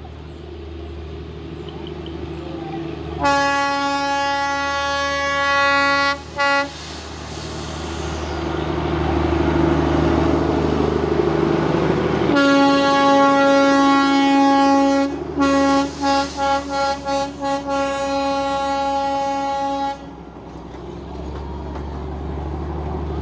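Darjeeling Himalayan Railway diesel locomotive passing: a horn blast of about three seconds, then the engine running louder as it comes close, then a long horn blast broken by a string of quick short toots in its middle. Near the end the horn stops and the passenger coaches roll by with a lower, steadier running sound.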